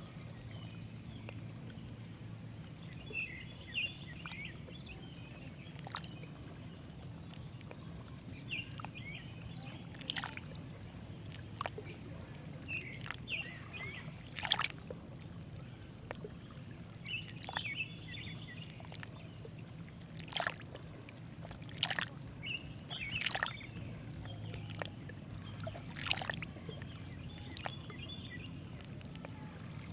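Scattered sharp clicks, one every second or two at an uneven pace, with short high chirps between them over a steady low hum.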